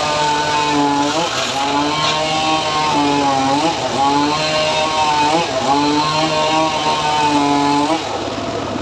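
Homemade sawmill (gergaji srekel) sawing through a teak log: a loud machine whine that sags in pitch every second or two as the blade loads up in the wood. About eight seconds in the whine stops, leaving a rougher running noise.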